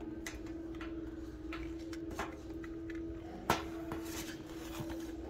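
Shop ambience with a steady low hum and a few light clicks and knocks from shoes being handled; the sharpest knock, about three and a half seconds in, is a shoe being set down on a metal shelf.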